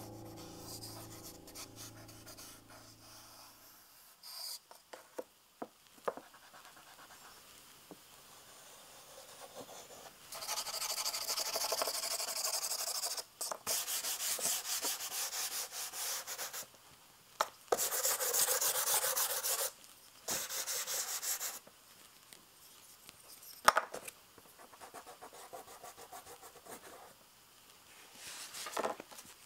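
Charcoal drawing on paper: a hand and a charcoal stick rubbing and scraping across large paper sheets in several stretches of a few seconds each, with soft taps and scratches between them.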